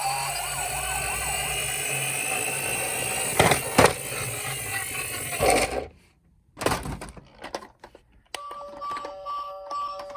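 Toy police car and emergency-vehicle sirens wailing over one another, with two sharp knocks about three and a half seconds in. The sirens cut off about six seconds in. After a short gap a repeating electronic chime tune starts.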